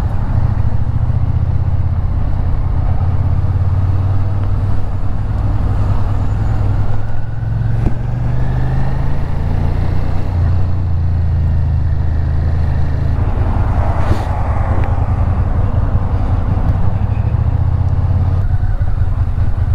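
Suzuki Gladius motorcycle's 645 cc V-twin engine running steadily under way in city traffic.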